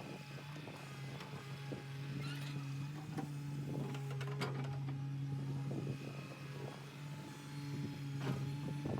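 An engine hum held at one steady pitch, with scattered knocks and clicks over it.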